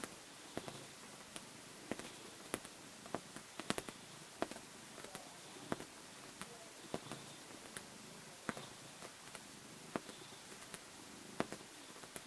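Siamese cat suckling and kneading a fleece blanket, making irregular sharp clicks and smacks, about one or two a second.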